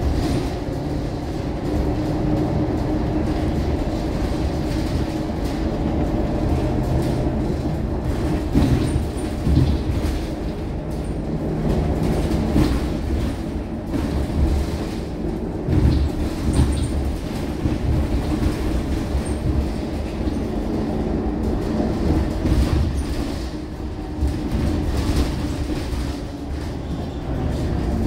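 Scania K230UB single-deck bus heard from inside the cabin while under way: its five-cylinder diesel engine running steadily, with road noise and occasional short knocks and rattles from the body.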